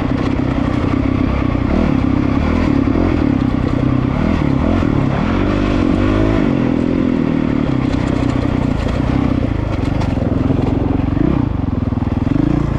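Honda CRF450RL's 450 cc single-cylinder four-stroke engine running at low to moderate revs, its pitch wavering and rising briefly a few times with the throttle, with tyres and chassis clattering over loose rocks on the dirt trail.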